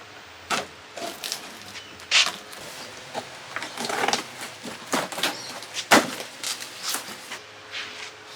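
Irregular knocks, bumps and scrapes of objects being handled and moved about, with rustling in between. The loudest knock comes about six seconds in.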